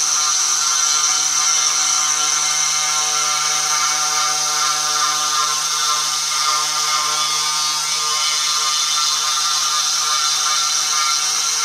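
Mini CNC router's spindle running at high speed while its small end mill cuts into a wooden board, giving a steady high-pitched whine with a constant mechanical hum under it.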